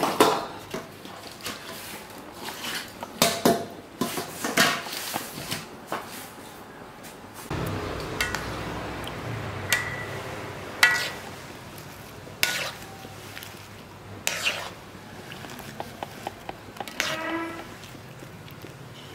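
Wire-mesh strainer knocking and scraping against a metal wok as it scoops larvae out of water, giving a series of irregular sharp metallic clinks. A low steady hum comes in about halfway through.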